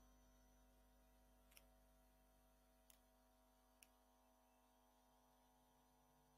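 Near silence: a faint steady hum, with three faint clicks in the first four seconds.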